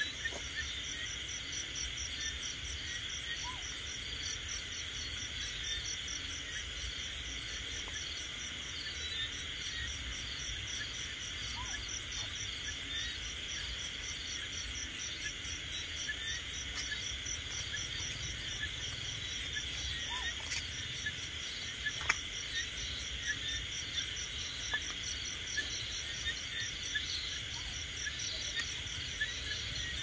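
Night-time chorus of crickets and other insects: a steady high trilling with a fast, even pulsing above it.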